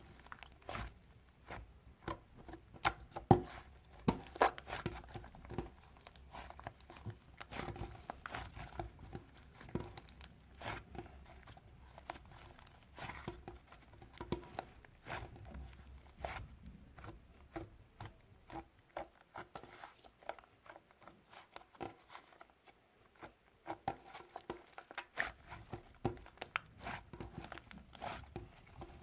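Fluffy slime being squeezed and played with by hand, giving many small, irregular crackles and pops; the crackling thins out for a few seconds a little past halfway, then picks up again.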